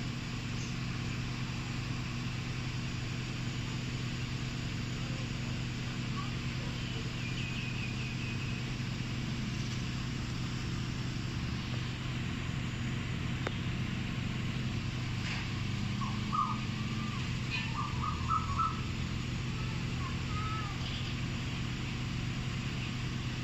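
A Nissan car's engine idling with a steady low hum. Small birds chirp a few times around the middle.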